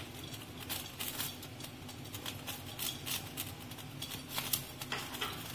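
Cooking oil heating in a wok, giving off small irregular crackles and pops over a faint steady hiss as it comes up to frying heat.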